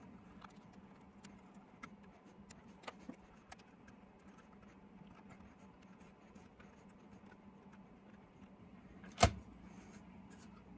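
Faint clicks and taps of a small screwdriver and plastic parts being handled on an HO-scale model locomotive shell, with one sharper click about nine seconds in, over a faint steady hum.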